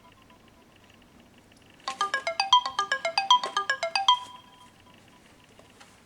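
Samsung phone ringtone playing one rapid melodic phrase of short notes, about seven a second, for a little over two seconds, ending on a held note that fades. Quiet pauses come before and after the phrase.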